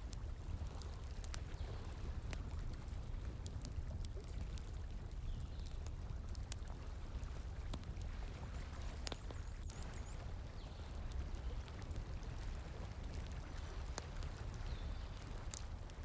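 Wood fire crackling, with scattered sharp pops and snaps over a steady rush of flowing water.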